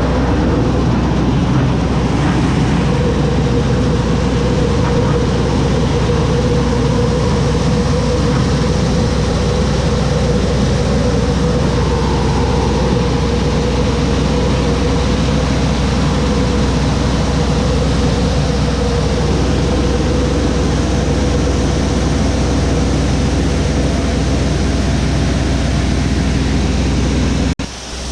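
Tractor engine running a tractor-driven grain auger that is loading shelled corn into a bin: a loud, steady mechanical drone. A steady tone holds through much of the middle, and the sound briefly drops out near the end.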